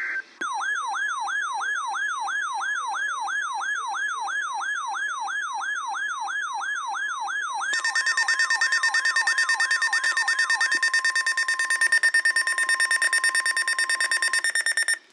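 Electronic emergency-alert attention tone: a siren-like tone sweeping up and down about three times a second. About halfway through, steady rapidly pulsing tones join in, and the sweeps fade out before the whole signal cuts off suddenly near the end.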